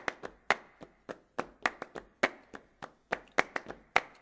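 Rhythmic hand clapping in the flamenco palmas style, about four claps a second with uneven accents, opening a flamenco recording before the guitar and singing come in.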